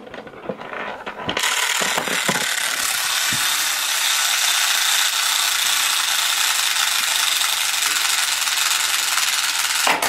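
Toy toaster: a few clicks as its timer dial is turned, then the timer runs with a steady whirring noise for about eight seconds and stops as the toast pops up near the end.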